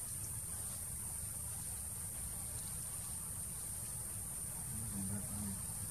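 Steady outdoor forest background: a continuous high-pitched hiss, like an insect drone, over a low rumble, with a few faint short low hums near the end.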